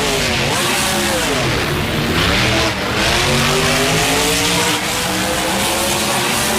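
Monster-truck engine revving as a sound effect: the pitch drops about two seconds in, then climbs slowly, over a steady rush of noise.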